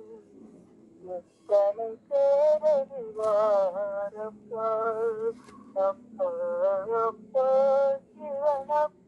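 A solo voice singing a Tamil devotional hymn in long held phrases with gliding ornaments, over a steady low drone.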